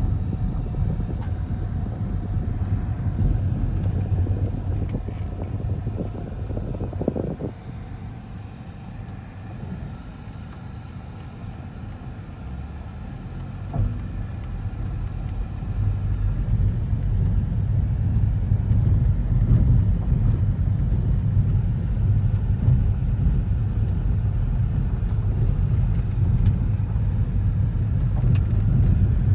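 Road noise heard inside a moving car's cabin: a steady low rumble of engine and tyres on a gravel road. It drops quieter for several seconds about a third of the way in, with a light knock as it falls and another as it comes back, then runs louder again to the end.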